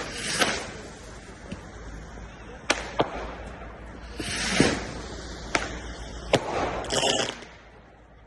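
Fireworks going off: a string of sharp bangs, two of them in quick succession, among three short crackling, hissing bursts. The display dies down near the end.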